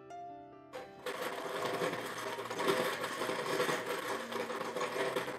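A dense clattering noise of many fast small clicks, starting about a second in and lasting about four seconds, over quiet background music.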